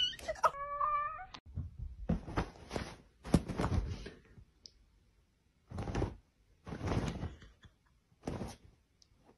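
A short cat meow about half a second in, then a string of short, irregular rustles and soft thumps as a kitten pounces and tumbles about on a duvet.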